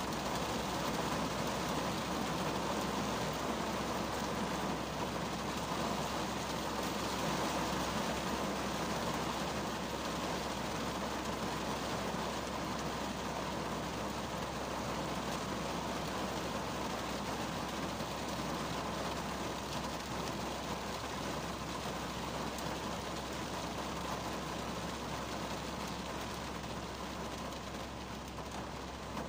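Rain falling on the roof and windshield of a 2010 Kia Cerato, heard from inside the closed cabin as a steady rush that eases slightly near the end.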